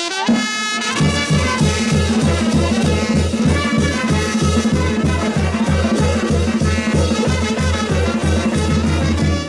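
Brass band playing a lively dance tune, with held brass notes over a steady, quick bass beat of about three pulses a second that comes in about a second in.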